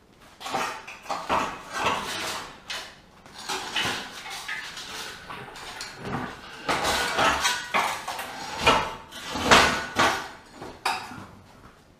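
Metal hand tools and steel engine-cradle parts clanking and clattering in irregular knocks, the loudest about three quarters of the way through.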